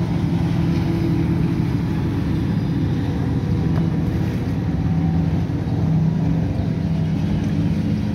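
Motorboat engine running steadily, a low drone that swells slightly about six seconds in.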